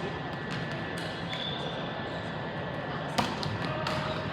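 Background chatter of a crowd in a gym during a game. A brief high squeak comes about a second in, and a sharp ball hit just after three seconds.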